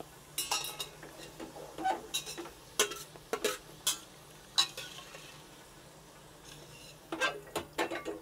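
Slotted steel spatula scraping and clinking against a stainless steel pot as fried onions are lifted out of hot oil, over a faint sizzle. A run of sharp scrapes in the first half, a lull, then another cluster near the end.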